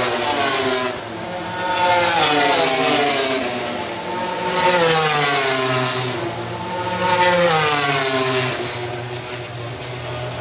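Racing motorcycles passing at high revs on the circuit, one after another: about three swells as bikes go by, the engine pitch climbing and then sliding down with each pass.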